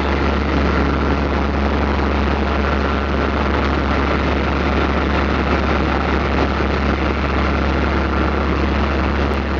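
Heavy diesel engine of a fire truck running steadily at constant speed: a deep, unchanging hum with a broad rush of noise over it.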